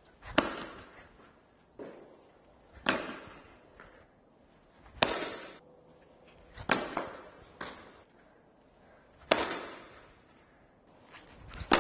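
Cricket bat striking tennis balls: a sharp knock every two to three seconds, six in all, each echoing around an indoor hall, with a few fainter knocks in between.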